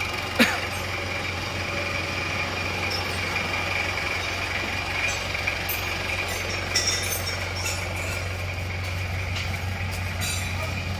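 Isuzu Panther diesel engine idling steadily after a rebuild with new piston rings and cylinder liners. There is a sharp click about half a second in.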